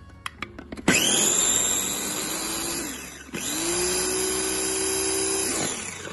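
Small electric food chopper (mini food processor) run twice in short pulses, each run about two seconds long and opening with a quick rising whine of the motor before holding steady. It is crushing onion, coconut, garlic and spices into a coarse masala paste.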